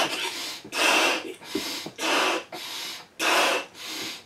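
A man breathing hard while blowing up a large latex balloon: quick, loud breaths in alternate with weaker blows into the balloon, about one cycle a second.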